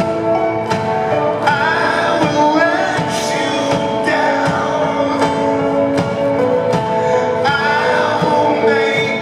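Live rock band performance: a male lead vocal sung into a microphone over held keyboard chords and drums.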